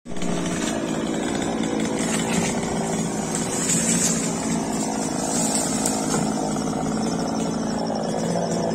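Chainsaw engine running steadily at a constant high speed, one unbroken engine note.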